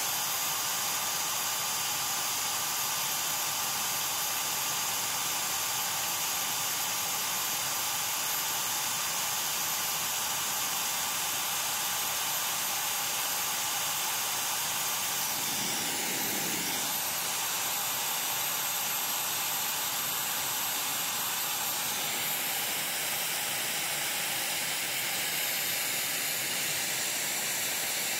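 Small electric jet fan (air blower) running steadily, blowing air to cool heated phones: an even rushing hiss with a faint high whine. There is a brief soft bump about halfway through.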